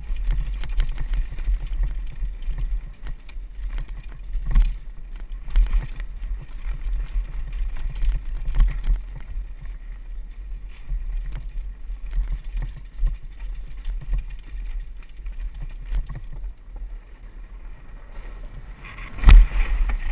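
Downhill mountain bike ridden fast over a rough forest trail, heard from a helmet camera: steady wind rumble on the microphone with the rattle and knocks of the bike over bumps and roots. About a second before the end, a louder clatter as the wheels run onto wooden boardwalk planks.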